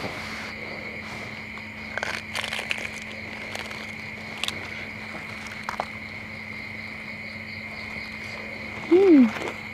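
A steady, high-pitched chorus of crickets runs throughout. A few crisp crunches come through as a piece of deep-fried frog is bitten. Near the end there is a short vocal sound that falls in pitch.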